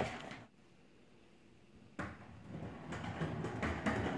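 Skateboard with a puppy aboard rolling and clattering unevenly on a hardwood floor, with knocks from the board. Before that there is a stretch of near silence, broken by a single sharp click about two seconds in.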